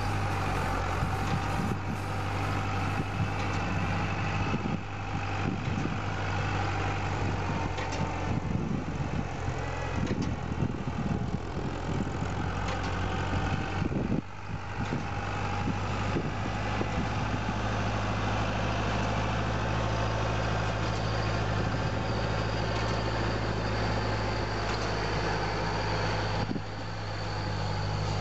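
Tractor engine running steadily under load, with mechanical clatter from the bale-handling implement.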